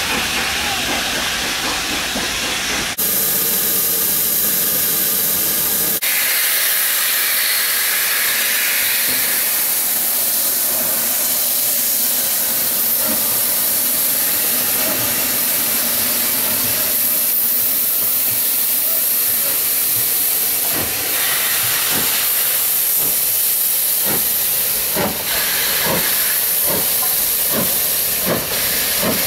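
Steam locomotive letting off steam, a loud steady hiss. Near the end LNER B12 4-6-0 No. 8572 pulls away, its exhaust beats coming about twice a second and slowly quickening.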